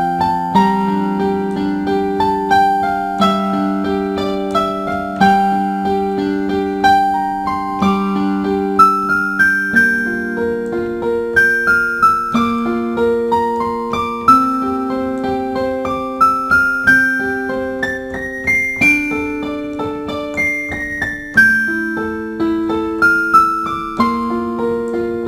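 Background music on a solo electric piano: a slow melody of single struck notes moving up and down over held chords.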